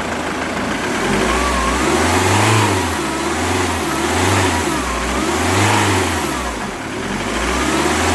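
Ford Mondeo Mk3 2.0 TDCi four-cylinder common-rail diesel revved in a run of short throttle blips, rising and falling about every second and a half. It runs without the injector knock, its faulty Delphi injector nozzles having been replaced.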